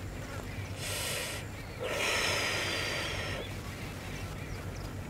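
A man drawing on a cigarette and blowing out smoke: a short breathy puff about a second in, then a longer, louder drag lasting about a second and a half.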